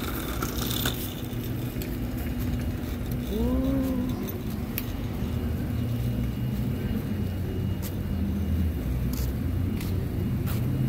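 Road traffic: the steady low rumble of car engines, with a short pitched sound that rises and falls about three and a half seconds in.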